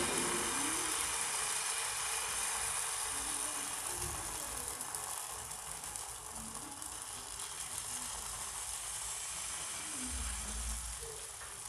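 Maize-flour batter sizzling in a hot, oiled non-stick frying pan as it is poured in: a steady high hiss that slowly fades.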